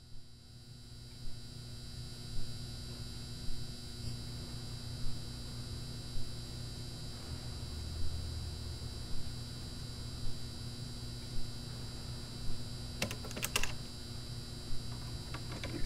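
Steady electrical hum with soft ticks a little over once a second, then a short run of sharp clicks near the end.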